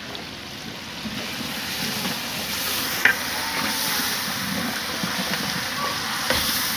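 Food sizzling while it fries, with stirring and a sharp knock of the stirring utensil about three seconds in.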